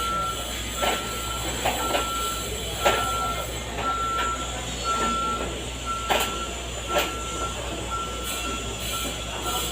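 A vehicle reversing alarm beeping, about one half-second beep each second on a single steady mid-high note. Sharp knocks sound about once a second over a low hum.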